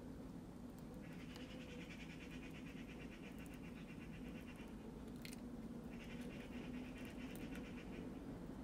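Eurasian red squirrel eating a raw egg: quick, rhythmic mouth sounds in two stretches, starting about a second in and again after the middle, with one sharp click between them. A steady low hum runs underneath.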